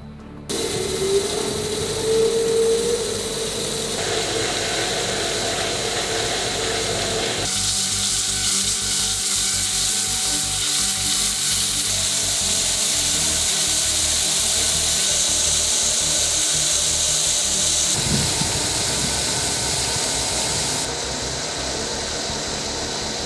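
Diamond wire saw cutting granite: the machine starts up about half a second in with a rising whine, then runs steadily with a loud hiss of the wire and cooling water in the cut. The sound changes in character several times.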